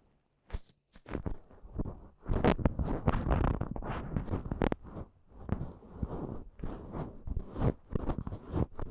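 Goose-down tuft of an ear pick brushing and rubbing in a binaural microphone's ear: a quick, uneven run of soft rustling, scratchy strokes that starts about a second in.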